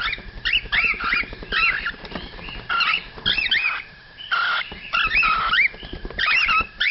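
Several young cockatiels calling together: rapid short chirps that rise and fall in pitch, several a second and overlapping, with a couple of raspier, hissier calls about halfway through.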